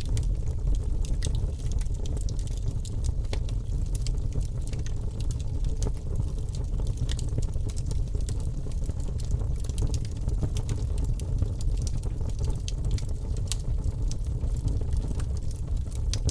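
Wood fire burning in a fireplace: a steady low rumble of flames with frequent small crackles and snaps scattered irregularly throughout.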